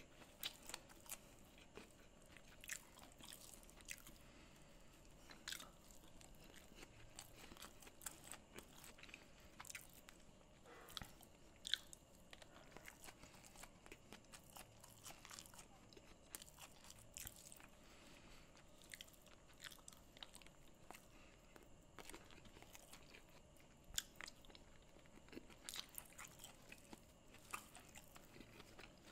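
Close-miked eating of red rice and cashew curry: quiet chewing with many short, sharp crunches and mouth clicks, the loudest about twelve seconds in.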